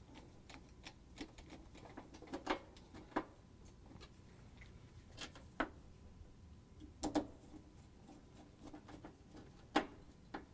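Hand Phillips screwdriver turning screws into an oven door's metal trim: faint, scattered clicks and scrapes of the bit in the screw heads, at irregular intervals of a second or more.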